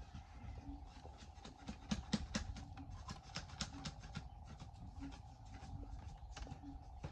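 Light, irregular knocks and clicks of hand work on bamboo, coming several a second at times, over a faint steady hum.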